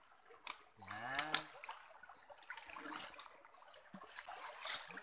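Shallow rocky stream trickling, with a few sharp splashes and knocks of people wading in the water. About a second in comes a brief drawn-out vocal sound that rises and then falls in pitch.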